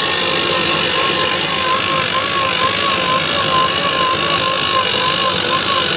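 Harbor Freight 2000 lb electric marine winch running under load as it pulls a seized tractor up onto a trailer: a steady motor and gear whine whose pitch wavers slowly up and down.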